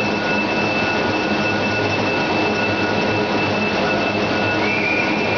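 Steady, loud running noise of a fourdrinier paper machine, with a thin high whine and a low hum running through it.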